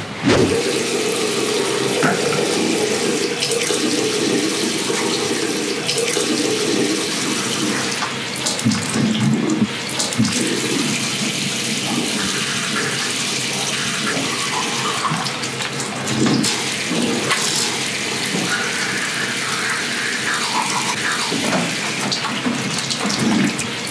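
Bathroom tap running into a sink, a steady rush of water that starts abruptly, with a toothbrush scrubbing under it.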